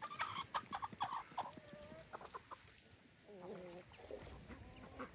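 Chickens clucking faintly: a quick run of short clucks, then a few longer calls.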